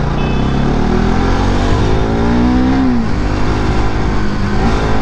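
Bajaj Pulsar NS200 single-cylinder engine accelerating under the rider, its pitch rising steadily, then falling abruptly at a gear change about three seconds in and holding before it starts rising again near the end. Wind and road rush sit under the engine.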